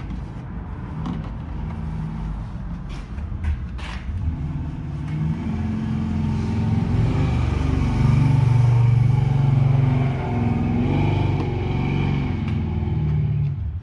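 Motor vehicle engine running, growing louder to a peak about eight seconds in and then easing off, with a few sharp clicks in the first few seconds.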